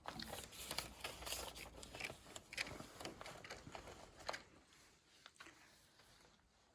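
Faint, irregular clicks and rustles that thin out about four and a half seconds in.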